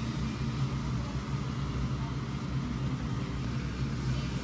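Steady low hum of room noise, a constant drone with a faint even hiss over it and no distinct events.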